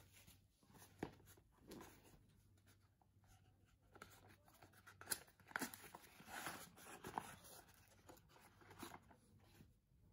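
Faint rustling and light taps of cardboard packaging being handled: a small kraft box flap is opened, a boxed unit is slid out, and the boxes are set down on cloth. The sounds come as scattered short scrapes and ticks, a little busier in the middle.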